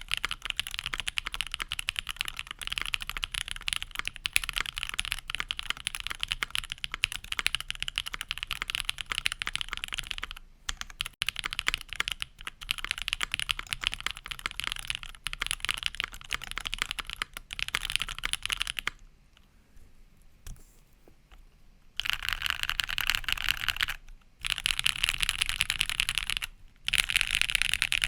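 Fast typing on a tape-modded Prophet mechanical keyboard with lubed budget 'Creampaca' linear switches (JWK housings, Kailh Pro Burgundy stems), a polypropylene plate and CRP R3 keycaps. It is a dense stream of keystroke clacks that stops for about three seconds past the middle and breaks off briefly twice near the end.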